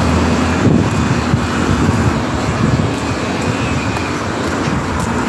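Steady, loud rush of engine noise from passing vehicles, with a low hum that fades out under a second in.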